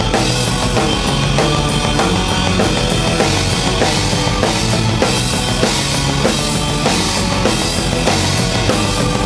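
Live hard-rock band playing, heard close to the drum kit: a steady kick-and-snare beat with cymbal crashes over electric guitar and bass.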